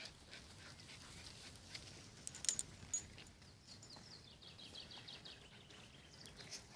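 Faint clicks and scuffs of dogs moving about on an asphalt lane, with a short descending trill of evenly spaced high notes from a songbird about four and a half seconds in.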